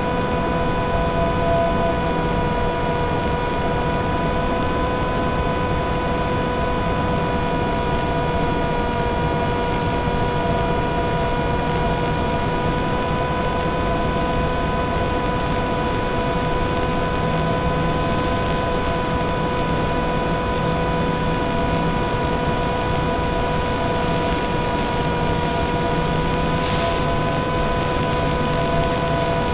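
Electric motor and propeller of an FPV model plane under steady power, heard as an even whine of several fixed tones over constant hiss. The sound comes through the plane's analog video link and has a narrow, thin quality.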